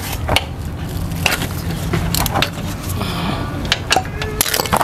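Irregular metallic clicks and knocks of a ratchet and 17 mm socket working loose the oil drain bolt on a motorcycle engine.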